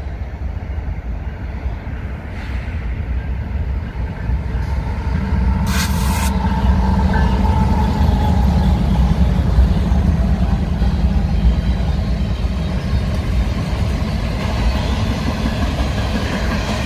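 Diesel-electric freight locomotives passing close, their engine rumble growing loud as they go by about five to ten seconds in. It then gives way to covered hopper cars rolling over the rails. A short hiss comes about six seconds in.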